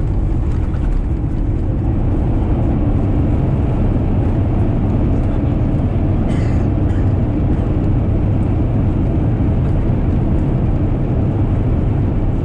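Airbus A350-900 decelerating on the runway right after landing, heard from inside the cabin: a loud, steady, deep rumble of engines and wheels on the runway. There is a brief rattle about six seconds in.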